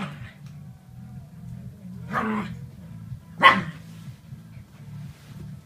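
Small dogs playing, one barking twice: a bark about two seconds in and a sharper, louder one about a second and a half later.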